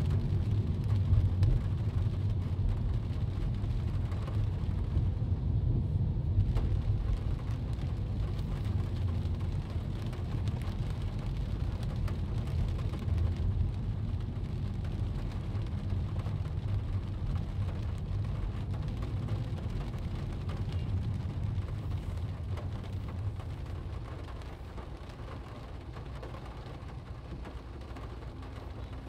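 Rain striking a car's windshield and roof, heard from inside the cabin, over the low rumble of the car driving on a wet road. The rumble eases off somewhat near the end.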